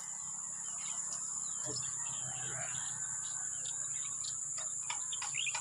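Insects droning steadily at a high pitch, with scattered bird chirps over the top, more of them near the end.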